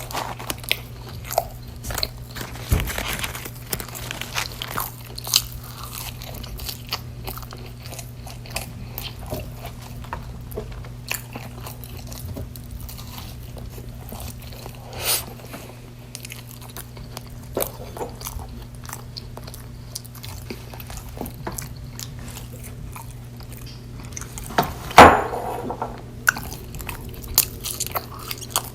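Close-miked eating: wet chewing with many small crunchy clicks and bites, and one much louder crunch or knock about 25 seconds in, over a faint steady low hum.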